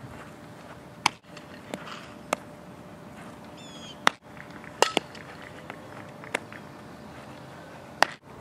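Several sharp smacks of a softball being hit and caught, irregularly spaced, with a brief high chirp about halfway through.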